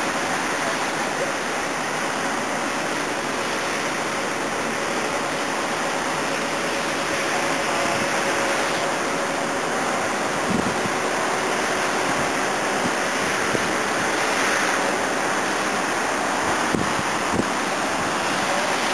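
Steady rushing outdoor noise from a high rooftop: wind across the microphone mixed with the wash of distant road traffic below. A few faint low thumps come about ten seconds in and again near the end.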